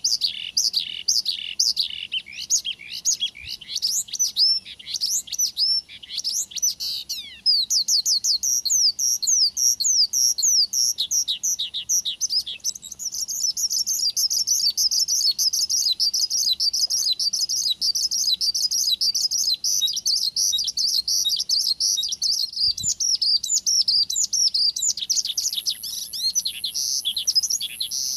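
Male Horsfield's bushlark (branjangan) in full song: a continuous fast stream of high chirps and quick sweeping whistled notes, becoming a dense rapid chatter from about halfway through and breaking back into separate sweeping notes near the end.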